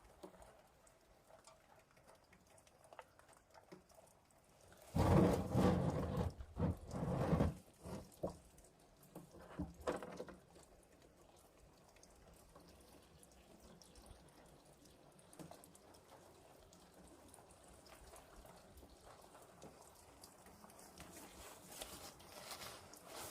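Engine oil draining from the Lovol 504 tractor's sump into a container, a faint pouring and dripping, broken about five seconds in by a few seconds of loud noise.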